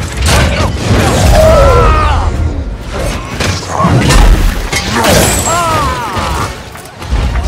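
Action-film fight sound mix: heavy metallic clanks, crashes and booms from the Hulkbuster armour grappling with a giant alien brute, with strained shouts and growls over an orchestral score. The din eases for a moment near the end, then picks up again.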